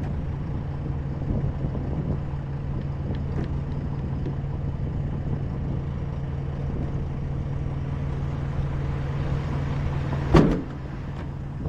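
A motor-vehicle engine idling steadily with an even low hum, and a single short, sharp loud sound about ten seconds in.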